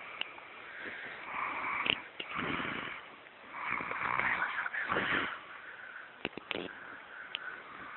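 A person snoring: several drawn-out, raspy breaths, then a few short sharp clicks or snorts in the second half.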